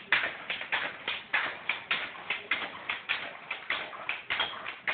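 A quick, slightly uneven run of sharp taps or knocks, about four to five a second.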